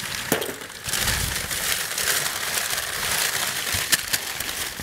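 Newspaper packing being crumpled and pulled apart by hand, a continuous crinkling and rustling of paper, with a sharp click about four seconds in.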